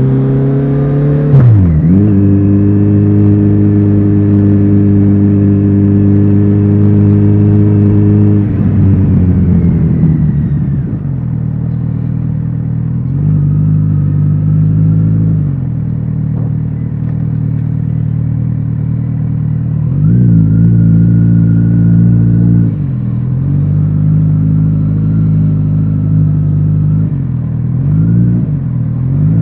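Kawasaki Z900RS inline-four motorcycle riding with its aftermarket exhaust. A quick gear change about a second in, then a steady cruise before the revs fall away on a closed throttle, then lower-speed riding with a few more gear changes and throttle openings.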